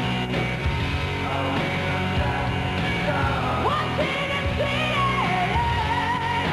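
Rock band playing loudly: drums and bass under a male singer holding high notes that slide in pitch.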